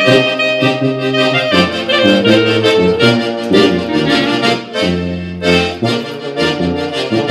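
Ensemble of accordion, clarinet, trombone and sousaphone playing a hymn together in four-part harmony, with held chords over a sousaphone bass line.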